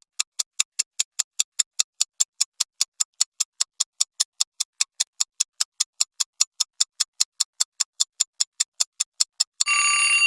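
Countdown-timer sound effect: a clock ticking evenly, about five ticks a second, that gives way near the end to a bright bell ding signalling that time is up.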